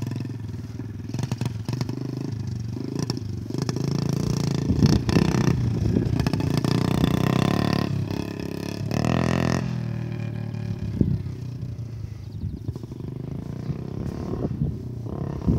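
Small dirt bike engine running as it is ridden over grass, revving up and easing off again and again. It is loudest in the middle and quieter after about ten seconds.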